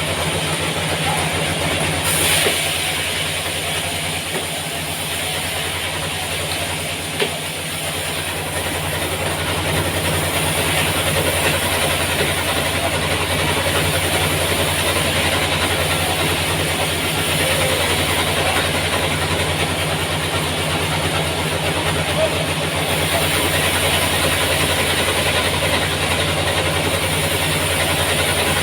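Sawmill machinery running steadily: a constant low engine-like hum with a noisy rush over it, growing a little louder about ten seconds in.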